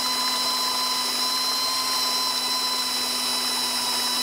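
Ryobi cordless drill running at a steady speed, its motor whine holding one pitch, as it spins the screw of a 3D-printed screw pump lifting water.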